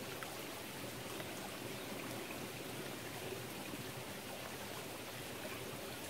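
Mountain stream running over rocks: a faint, steady rush of flowing water.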